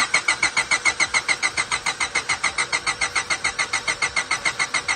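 A 2000 Honda Civic's D16Y8 four-cylinder engine cranking on the starter at a steady rhythm of about eight pulses a second without catching, stopping near the end. It won't fire because the new injectors' plugs are the wrong ones and the injectors are getting no signal.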